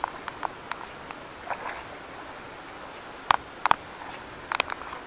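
A few sharp clicks and knocks with faint rustling as an angler handles a landed fish and his tackle in the bankside weeds, the three loudest clicks in the second half.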